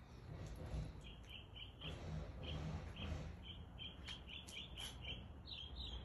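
Faint short chirps of a small bird, repeated many times from about a second in, over low background noise.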